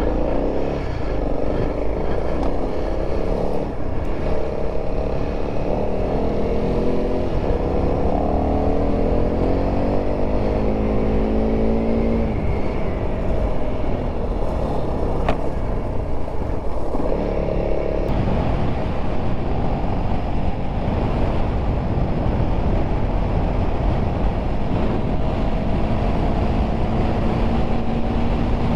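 Honda CRF300L single-cylinder motorcycle under way, its engine note rising in pitch as it accelerates, once over several seconds early on and again near the end. Heavy wind noise on the microphone runs throughout.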